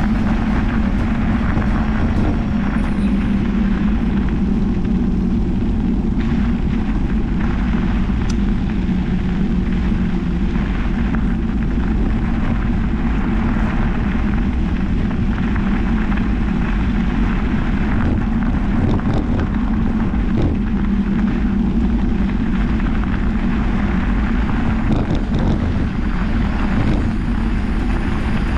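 Steady wind buffeting on a mountain bike's action camera and the crunch of knobby tyres rolling over a gravel track, with scattered small ticks from loose stones.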